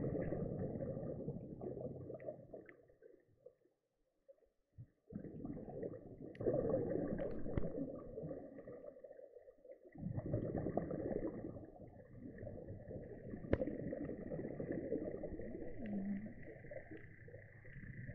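Scuba divers' exhaled bubbles rumbling underwater in long bursts of several seconds, with quiet breaks between breaths, over a faint steady high whine.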